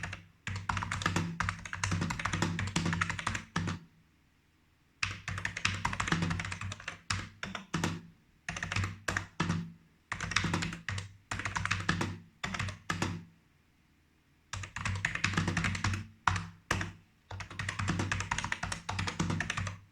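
A 1993 BTC 5149 keyboard being typed on in fast runs of keystrokes, with two short pauses: one about four seconds in and one about two thirds of the way through.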